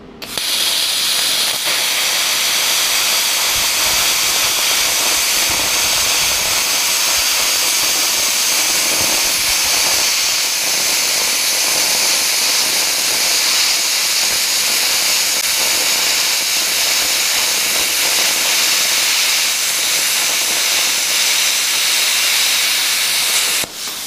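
PrimeWeld CUT60 plasma cutter running at 60 amps, cutting through half-inch steel flat bar: a loud, steady hiss of the plasma arc and air jet. It starts abruptly as the arc strikes and stops shortly before the end.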